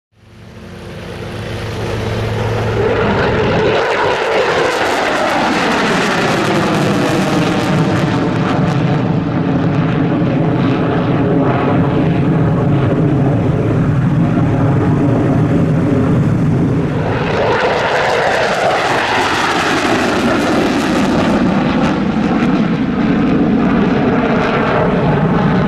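Two F-15 Eagle fighter jets climbing out one after the other in full afterburner, their twin Pratt & Whitney F100 turbofans giving a loud, continuous jet roar. The roar fades in at the start, and its pitch falls twice as each jet passes, first a few seconds in and again about two-thirds of the way through.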